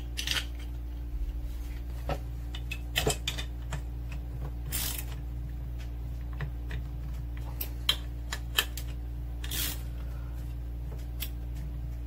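Metal clutch parts (clutch wheel, spindle and studded plate) being handled and fitted together by hand: scattered clicks, light knocks and short scrapes, with two sharper clicks near the end. A steady low hum runs underneath.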